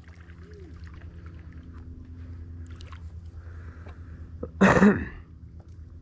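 A steady low hum throughout, with one short, loud human vocal burst about three-quarters of the way in, falling in pitch.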